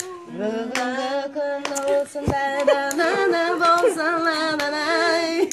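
A woman singing a birthday song unaccompanied, with children's voices joining in, on long held notes. A few short sharp clicks cut across it.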